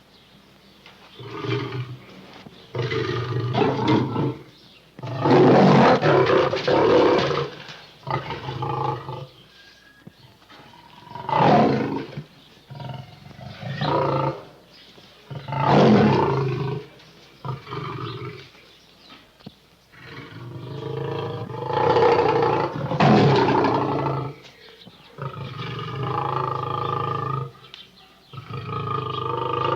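A series of big-animal roars and snarls made as cougar and bear sound effects: about a dozen separate calls, each one to three seconds long, with short gaps between them.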